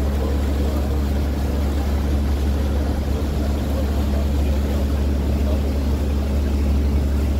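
Tour boat's engine running steadily at cruise, a constant low hum under an even hiss.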